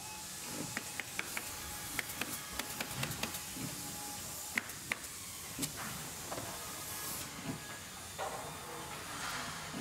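Handling noises at a workbench: scattered small clicks and taps over a steady hiss, with a longer rustling hiss from about eight seconds in.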